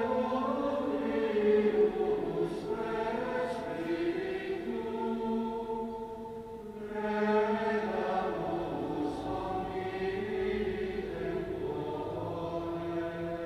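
Choir singing a slow, chant-like sacred piece in long held notes, in two phrases, the second swelling in about seven seconds in.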